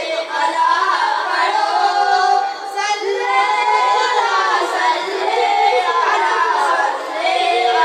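Children singing, with some notes held and others gliding.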